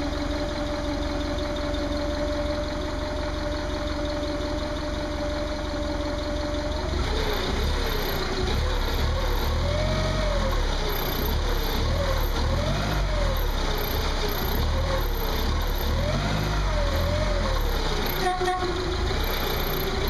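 Forklift engine idling steadily, then from about seven seconds in revved over and over as the accelerator pedal is pumped, its pitch rising and falling every second or two. A brief clunk near the end.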